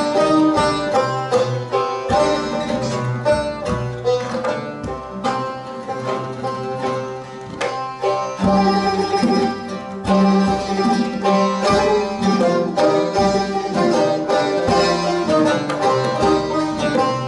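Persian traditional music played live by an ensemble of plucked string instruments, an oud among them, in a run of quick plucked notes.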